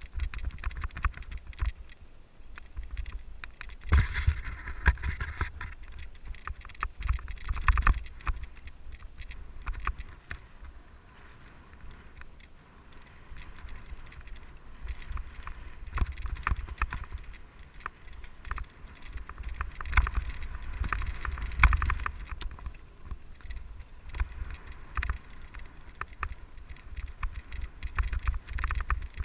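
Mountain bike rolling over a rough dirt trail, with a string of rattles and knocks from the bike over bumps and a steady low rumble. The ride is roughest about four to eight seconds in and again around twenty seconds in.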